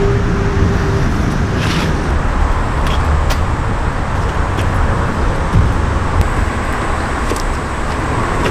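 Steady roar of road traffic, heaviest in the low rumble, with a few faint clicks and knocks over it.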